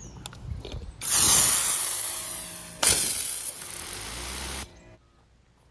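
Ryobi electric pressure washer spraying a jet of water onto a flat rubber roof to blast off dirt. A loud hiss of spray starts suddenly about a second in, a second burst comes just before three seconds, and the spray cuts off sharply near the end.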